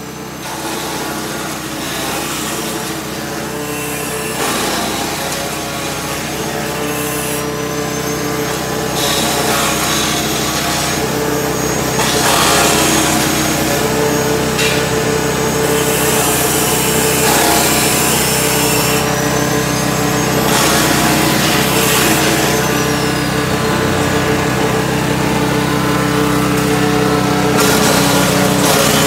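YM3000 grass chopper (chaff cutter) driven by a small 7 HP petrol engine, running steadily while cassava stalks with their leaves are fed in. The blades chop them in spells of rasping noise every few seconds, over the steady engine, and the whole grows louder as feeding goes on.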